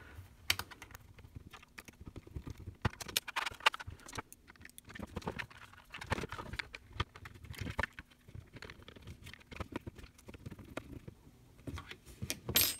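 Small bolts being tightened into a 3D-printed plastic housing by hand, with irregular clicks, taps and scrapes of tools and plastic as the part is handled and turned over. A louder clatter comes near the end.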